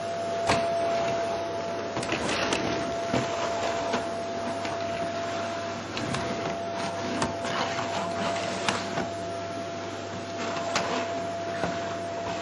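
Vacuum cleaner running on a wooden floor: a steady motor whir with a constant whine, broken by irregular clicks and knocks.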